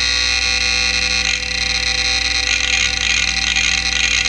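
Quantum Bigfoot CY 5.25-inch hard drive running with a steady whine while reading Windows 98 at boot; from about a second in its heads chatter in a rapid, even rhythm of a few seeks a second. The drive is failing, on its last legs.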